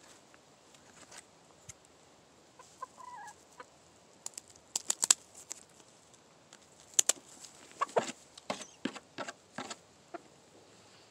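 A hen gives a brief call about three seconds in, then a run of sharp snips as scissors cut through the primary flight feathers of its spread wing, with the loudest snips around the middle.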